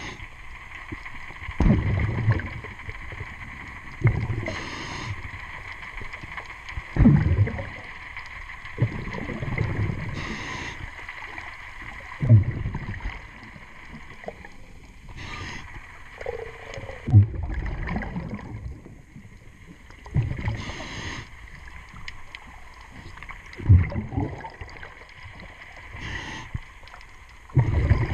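A diver breathing through a regulator underwater, with a short hiss on each inhale and a rumbling burst of exhaust bubbles on each exhale, about one breath every five to six seconds. A steady faint hum runs underneath.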